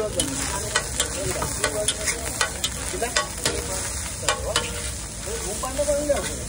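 A metal spatula scraping and clacking across a large flat griddle while egg fried rice is stirred and spread, over a steady sizzle of frying. The scrapes come often and at an uneven pace.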